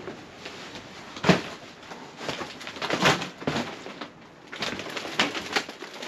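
Irregular footsteps knocking and crunching on a wooden floor strewn with debris, inside a small wooden room.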